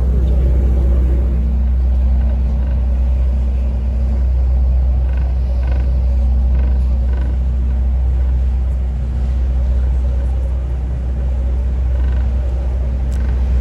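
A tour boat's engine droning steadily, heard on board as a loud low rumble with a steady hum above it.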